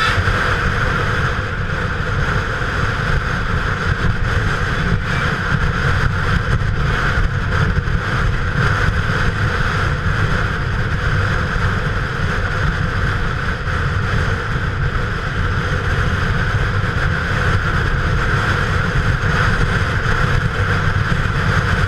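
Motorcycle riding at steady road speed: the engine running evenly under a constant rush of wind on a helmet-mounted microphone.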